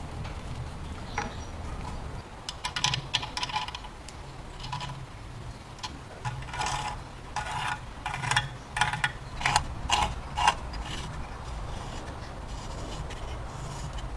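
Irregular scrapes and clicks of an old hand-worked vegetable slicer being handled, most bunched in the middle of the stretch, over a steady low hum.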